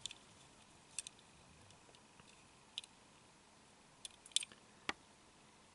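A few faint, scattered clicks and ticks from fingers handling a 1:64 diecast model car, in an otherwise quiet room.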